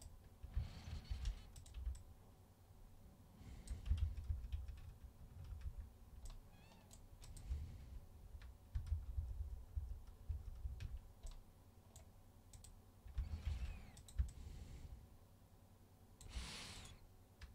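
Scattered clicks of a computer mouse and taps on keyboard keys while modelling, with a soft exhale near the end.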